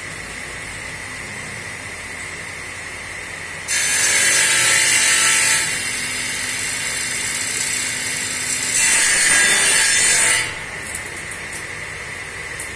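Sliding-table circular saw cutting through a wooden board for about seven seconds, starting about four seconds in. The cut is loudest at its start and again near its end, and the blade runs free with a steady hum before and after it. A couple of light knocks come near the end.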